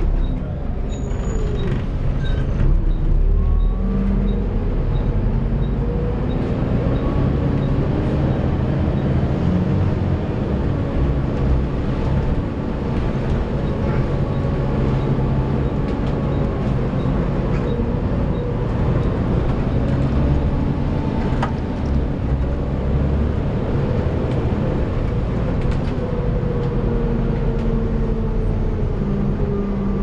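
Volvo B7TL double-decker bus's six-cylinder diesel and gearbox heard from the upper deck while under way, with the whining tone that earns it the nickname 'hoover'. The pitch climbs as the bus pulls away and works through the gears, and falls back as it eases off, several times over.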